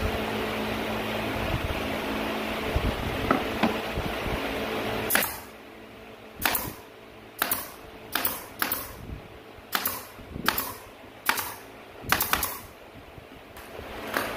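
A steady mechanical hum for about five seconds, then a handheld drill running in about ten short bursts, driving screws through wooden strips into a board.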